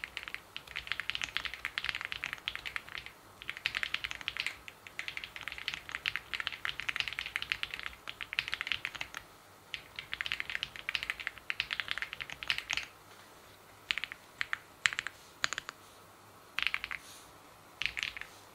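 Typing on a mechanical keyboard in an acrylic OwLab Spring case: fast, continuous runs of keystrokes, which thin out after about two-thirds of the way to a few isolated key presses and short clusters.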